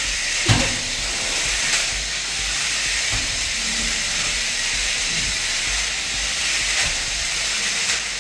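Remote-control stunt car driving on a marble floor: a steady whirring hiss from its electric motors and wheels, with one sharp knock about half a second in.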